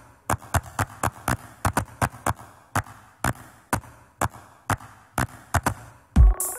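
Electronic dance track in a stripped-down break: only sharp percussive clicks and claps, about three or four a second, with no bass. Near the end a heavy kick drum and synth chords come back in.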